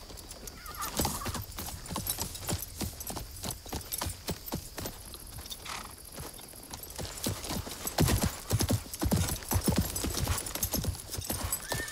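Horses' hooves clip-clopping on dry, hard ground, an irregular clatter of many hoofbeats that grows louder about eight seconds in.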